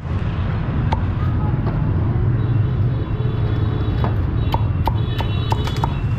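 Meat cleaver chopping roast pork on a thick wooden chopping block: a single sharp chop about a second in, then a quick run of chops in the second half, over a steady low rumble.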